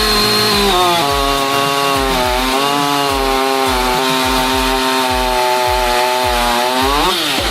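Professional two-stroke chainsaw running at full throttle while cutting wood, its high engine note steady but sagging twice under the load of the cut. Near the end the pitch rises as the saw runs free, then falls away.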